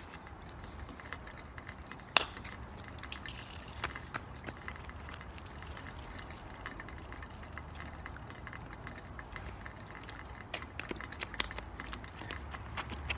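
Quiet outdoor background with a steady low rumble, scattered light clicks of footsteps on the road, and one sharp knock about two seconds in.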